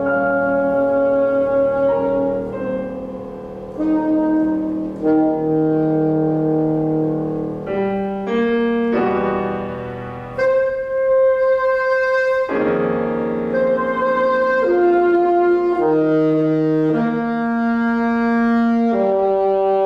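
Saxophone and piano playing a slow classical duo: the saxophone holds long sustained notes, moving to a new pitch every second or two, over sustained piano chords.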